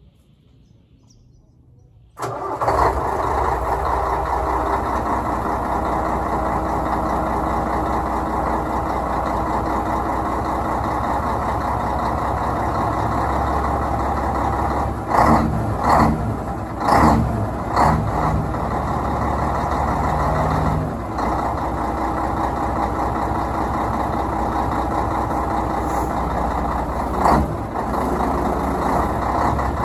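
Scania 113H's six-cylinder diesel engine starting about two seconds in, then running steadily at idle, with a few short louder surges around the middle and one near the end.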